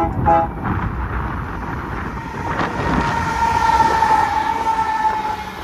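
Union Pacific freight train approaching and passing close, its lead GE AC45CCTE locomotive going by about four seconds in, with wind buffeting the microphone. A steady high tone comes up in the second half and sinks slightly in pitch as the locomotive passes, loudest about four seconds in.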